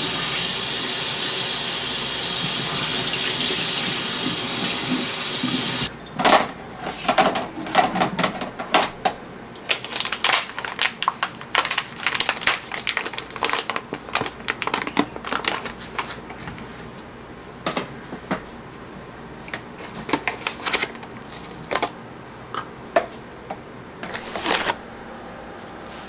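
Kitchen tap running steadily for about six seconds, then shut off suddenly. After that a coffee bag crinkles and rustles in irregular bursts as it is torn open and handled.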